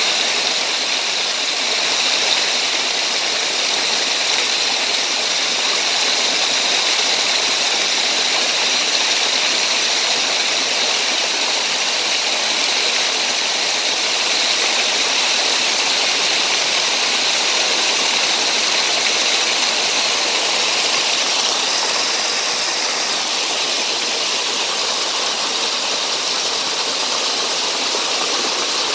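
Waterfall pouring and splashing onto rocks into a shallow pool, a loud, steady rush of water.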